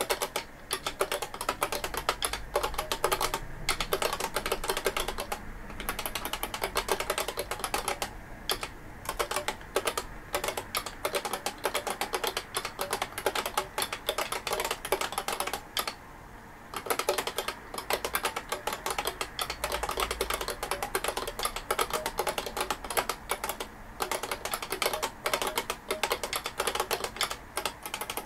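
Fast, continuous typing on an IBM 5251 terminal keyboard with beam-spring key switches. The keys clack in quick runs, with brief breaks and one pause of about a second near the middle.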